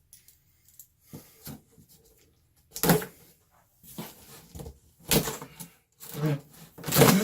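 Cardboard box being handled and opened by hand: a series of short scrapes and knocks, the loudest about three seconds in and again near the end.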